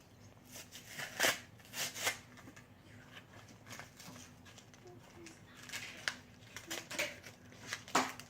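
Irregular clicks, scrapes and crackles of Pokémon card packaging being handled and opened by hand, with a few sharper snaps about a second in, around two seconds in and near the end.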